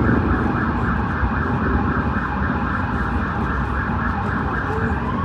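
A siren-like tone warbling rapidly and evenly, over a steady low rumble.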